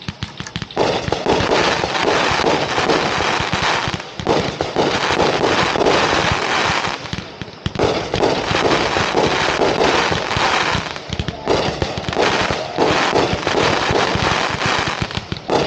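Consumer 1.4G finale set of three firework cakes firing a rapid, dense barrage of shots, with a few brief lulls.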